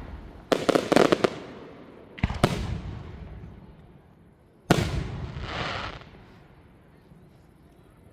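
Aerial fireworks shells bursting, each bang echoing away: a quick cluster of several bangs about half a second in, a single bang a little after two seconds, and another bang near five seconds followed by a drawn-out hiss.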